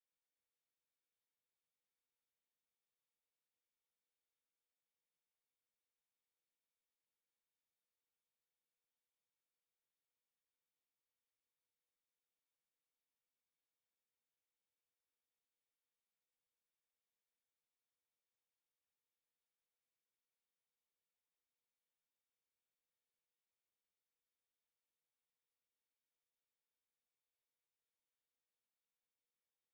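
Steady 7777 Hz sine-wave test tone: one loud, high-pitched tone held unchanged.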